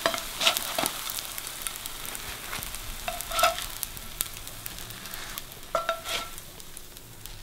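Zucchini pancakes sizzling in hot oil in a frying pan, with a silicone spatula clicking and scraping against the pan several times as the pancakes are lifted out.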